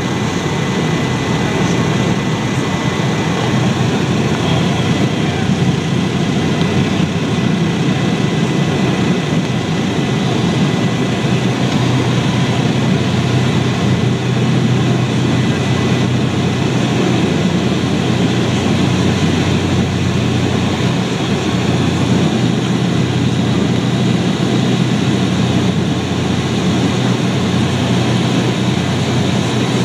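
Engine and propeller noise of a small high-wing propeller plane at takeoff power, heard inside the cabin: a loud, steady drone that builds over the first couple of seconds, then holds through the takeoff roll and lift-off.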